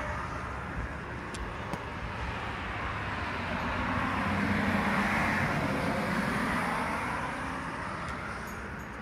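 A car passing on the street: tyre and road noise swells to a peak about halfway through, then fades away.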